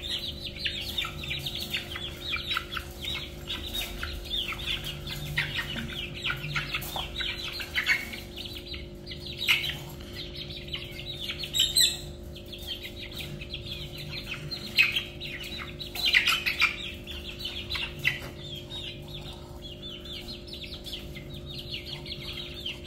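Young white Shamo chicks peeping constantly in short, rapid downward chirps as they crowd in to eat, with a few sharp taps among the peeps and a faint steady hum underneath.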